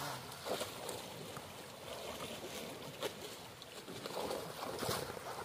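Water sloshing and splashing, with scattered light knocks that come more often near the end.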